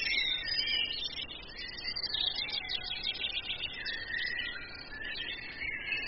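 Forest songbirds singing together: many quick, high chirps and short trills overlapping throughout.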